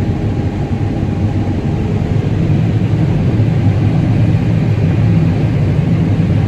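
Combine harvester running steadily while harvesting corn: an even, low engine and machinery rumble.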